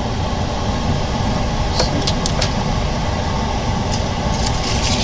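Motor of an OCA vacuum laminating machine running steadily with a low hum, a few sharp clicks about two seconds in and a short hiss of air near the end.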